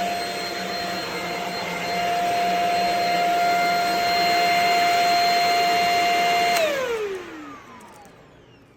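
Shark HV322 Rocket corded stick vacuum running with a steady high whine, then switched off about two-thirds of the way through, its motor winding down with a falling pitch.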